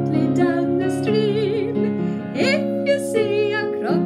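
A woman singing a children's action song over an instrumental accompaniment, with a wavering held note about a second in and swooping upward slides of the voice.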